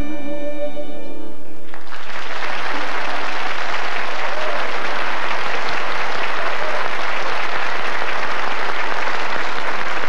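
A live folk band with violin and pan flute ends a song on a held note; about two seconds in it stops and a studio audience breaks into steady applause.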